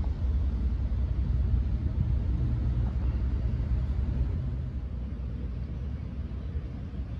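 Low, steady outdoor rumble of street ambience, with no distinct events standing out.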